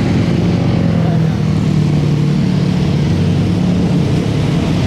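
Motor vehicle engine running at a steady pitch while driving, with a steady rush of road noise.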